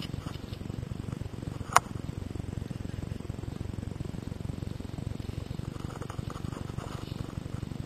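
Steady low rumble of movement and wind on a body-worn camera's microphone, with a single sharp airsoft gun shot about two seconds in.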